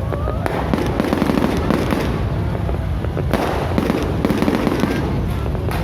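Fireworks display going off in a dense, continuous barrage of bangs and crackles over a constant rumble.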